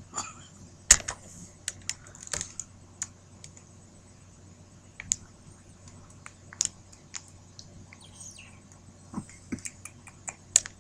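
Scattered sharp clicks and taps at irregular intervals, about a dozen, the loudest about a second in.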